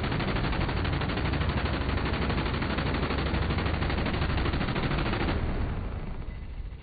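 Minigun, a multi-barrel rotary machine gun, firing one continuous burst, so fast the shots blur into a solid buzz. It stops about five and a half seconds in, and the sound then dies away.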